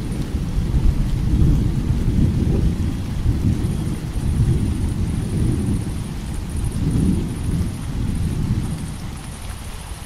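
Thunder rumbling low and long over steady rain, swelling and easing in waves and dying down near the end. Crickets chirp faintly in the background.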